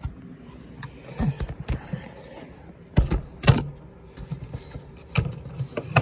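Plastic knocks and clicks from a smoke detector's housing being handled: a few sharp knocks, the two loudest about three and three and a half seconds in.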